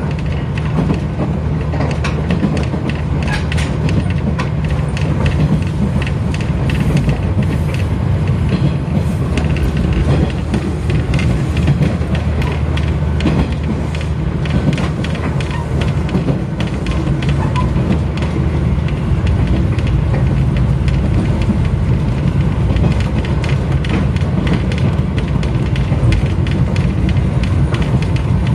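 Train running at speed, heard from inside the passenger car: a steady low rumble with many quick clicks and rattles from the wheels on the rails.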